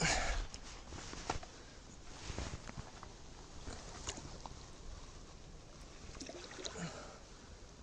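Faint handling sounds as a pike is lowered back into the water at the bank's edge: clothing rustling, a bump at the start, then small knocks and light water splashes.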